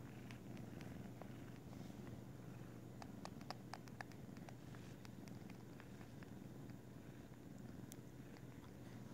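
Kitten purring steadily and faintly as it suckles air with its tongue hanging out, with a cluster of soft clicks about three seconds in.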